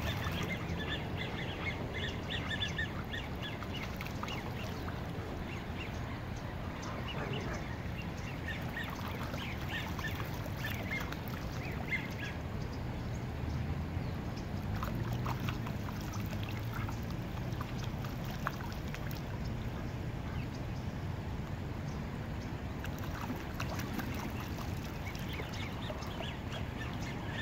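Ducks dabbling and upending in shallow pond water, splashing, with short duck calls that come in clusters near the start and again about ten seconds in. A steady low rumble runs underneath.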